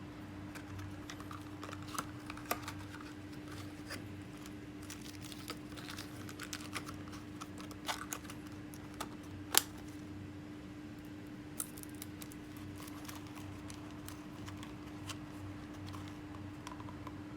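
Scattered light clicks and taps from handling a spinning reel while a handle knob is fitted to it, with one sharper knock about ten seconds in. A steady low hum runs underneath.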